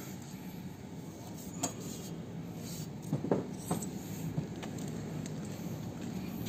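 A few sharp metallic clicks and clinks from a hand handling the kick-start lever of a 1980 Binter Merzy KZ200 motorcycle. The loudest cluster comes about three seconds in, over a low steady hum.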